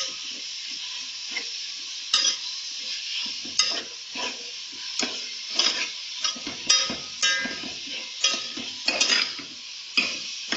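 Minced meat frying in hot oil in a metal pot, a steady sizzle, while a metal spatula stirs it, scraping and clinking against the pot about once or twice a second at an uneven pace.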